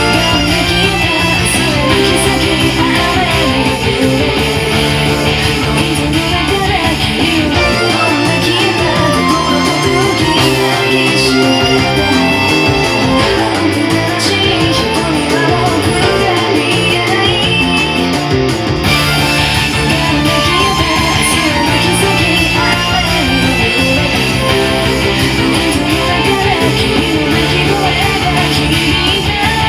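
Rock music with electric guitar; the deep bass drops away for a stretch in the middle and returns with the full band about two-thirds of the way through.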